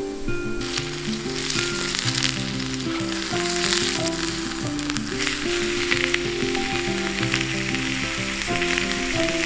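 Steak sizzling and spitting in a cast-iron skillet over a campfire, starting about half a second in, with background music underneath.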